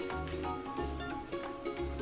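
Background music with a steady beat and a bass line changing about every half second, with plucked-string notes.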